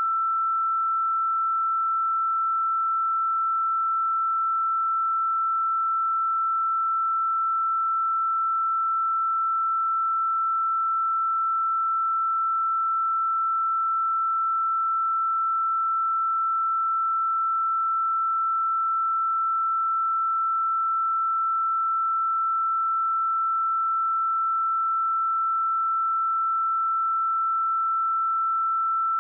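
A pure 1332 Hz sine-wave test tone, held steady at one pitch and one level.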